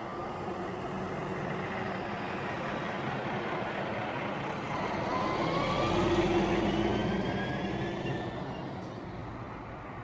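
Diesel tanker truck, a Volvo tractor unit pulling a multi-axle fuel tank trailer, driving past: steady engine and tyre noise that grows louder to a peak about six seconds in as it passes closest, then fades as it moves away.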